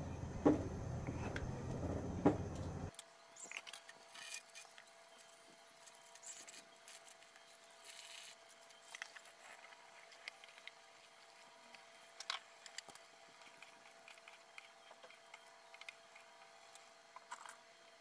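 Pot of beef stew boiling on a stove, with faint bubbling and scattered small pops. For the first three seconds a louder steady low rumble with two knocks of a wooden spoon on the pot, which cuts off abruptly.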